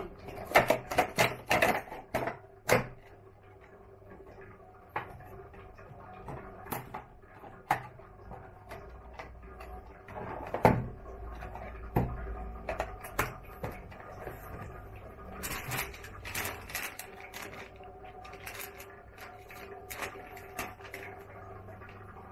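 Handling noise from a clear plastic case and a stack of paper cups: a flurry of sharp clicks and taps at first, scattered taps and crinkles through the middle, and another cluster later on, over a faint steady hum.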